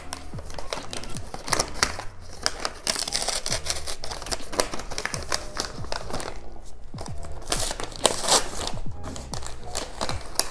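Paper gift wrapping rustling, crinkling and tearing as it is pulled off a cardboard box, with louder bursts of tearing about three seconds in and again about eight seconds in.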